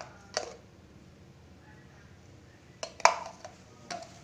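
A tablespoon clinking against a bowl in a few short, sharp taps with a brief ring: two near the start and a cluster of three or four about three seconds in.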